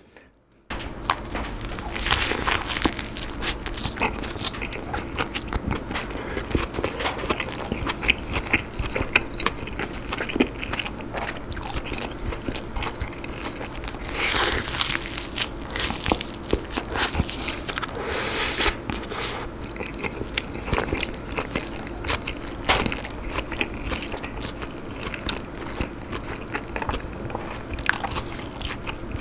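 Close-miked mouth sounds of a person biting into and chewing a beef burger with soft bun and lettuce: a steady run of irregular wet smacks and small clicks.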